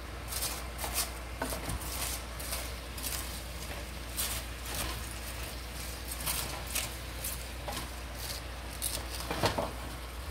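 Wooden spoon stirring and pushing a pan heaped with raw shredded cabbage: a run of short, irregular crisp rustles and scrapes of the leaves, over a steady low hum.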